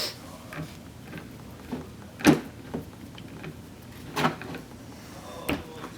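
Scattered clicks and knocks of a Tippmann 98 Custom paintball marker's parts being handled during reassembly, with the sharpest knock about two seconds in and two more later.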